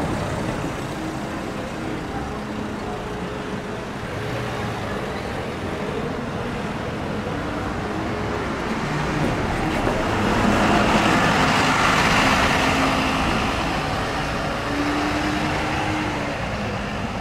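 City street traffic noise, with one vehicle passing close by, swelling and then fading about ten to thirteen seconds in.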